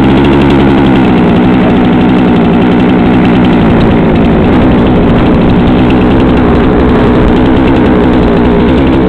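Two-stroke chainsaw idling steadily, right after the throttle is let off at the end of a cut.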